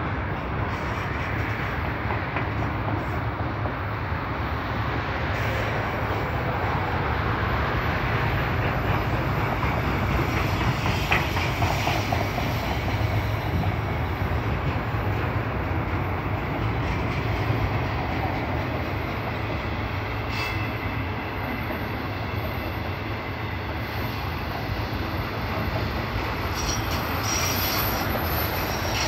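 Freight train autorack cars rolling past: a steady rumble and clatter of steel wheels on rail, with a thin high wheel squeal near the end.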